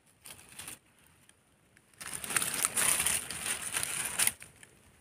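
Dry fallen leaves crunching and crackling under a hand digging into the leaf litter to pull up a mushroom, loudest for about two seconds starting about two seconds in.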